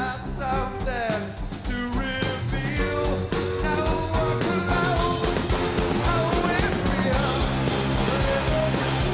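Live rock band playing at full volume: electric guitars, bass guitar and drums with singing, the band getting louder about three seconds in.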